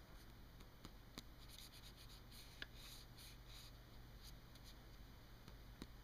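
Faint scratching of a ballpoint pen writing on lined notebook paper, a cluster of short strokes in the middle, with a few soft ticks.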